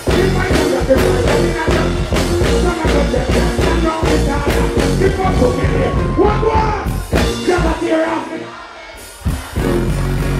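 Live dancehall reggae performance over a loud PA: a heavy bass-driven riddim with a vocalist singing on the microphone. Near the end the bass drops out for about a second, then the full beat comes back in.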